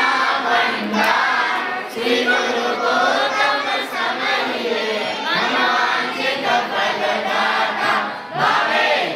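A group of voices singing together, in phrases with short breaks between them.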